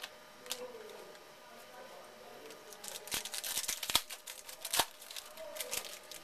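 Trading-card pack wrapper crinkling and tearing open by hand: a dense run of crackles from about three to five seconds in, with a few sharp snaps among them.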